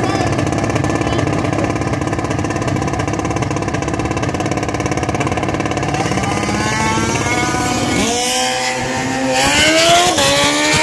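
Drag racing car engines idling and burbling at the line. About six seconds in the engine pitch starts to climb, and after about eight seconds a car launches hard: its revs rise steeply and the pitch dips and climbs again with each gear change.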